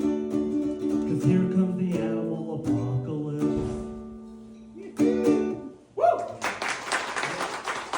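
The final bars of a live song: a voice singing over a strummed plucked-string instrument, ending on a held note about five seconds in. Just after, a whoop and audience applause break out and keep going.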